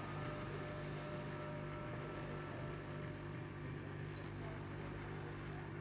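Steady low electrical hum, with the last of a bell-like ringing tone fading away over the first few seconds.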